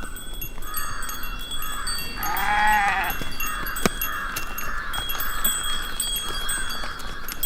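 Village outdoor ambience: a steady run of short repeated bird calls, with one bleat from a farm animal, a rising then falling call about two seconds in that lasts under a second.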